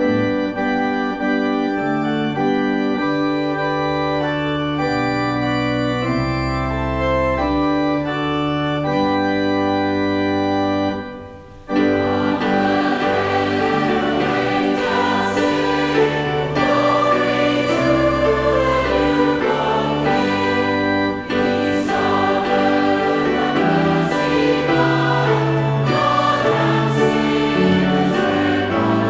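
Organ playing an introduction in slow held chords with deep bass notes; about twelve seconds in, after a brief pause, a choir comes in singing with the organ.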